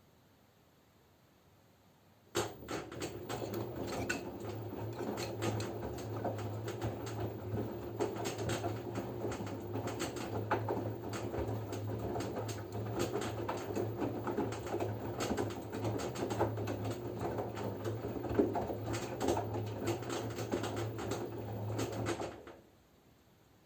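LG F10B9LD washing machine's direct-drive motor turning the drum during the wash phase: a steady motor hum with the laundry tumbling in many small irregular knocks. It starts about two seconds in and stops about a second before the end, as the drum pauses between tumbling turns.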